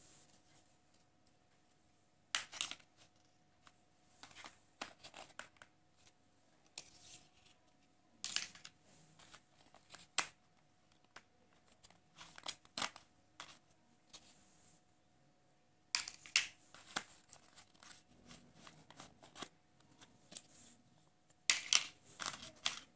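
Chunky plastic elephant jigsaw puzzle pieces being lifted, slid and set down on a paper backing sheet: scattered clacks, scrapes and paper rustles at irregular intervals.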